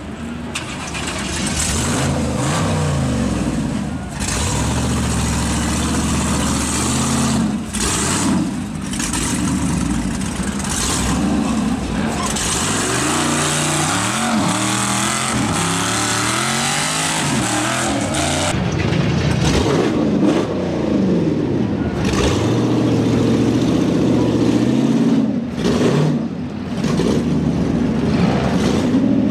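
Off-road rock buggy's engine revving hard under load as it climbs a steep rutted hill, the pitch rising and falling over and over with a few brief drops as the throttle lets off.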